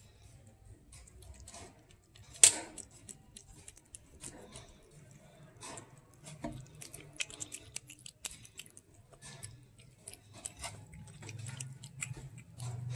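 Cat chewing and crunching fried fish, a quick irregular series of small crunches and clicks, with one sharp, louder click about two and a half seconds in.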